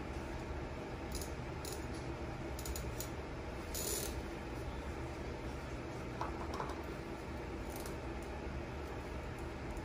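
Steady low room hum with a handful of short, sharp high clicks, most of them in the first four seconds and the loudest about four seconds in.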